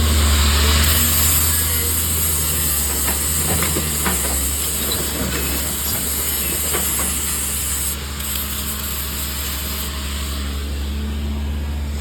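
Arc welding hissing steadily over a low, steady engine hum; the hiss eases off about eight seconds in.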